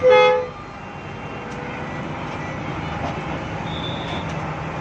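A short, loud horn blast of about half a second from a Hino AK8 bus, followed by the bus's diesel engine running steadily under cabin noise.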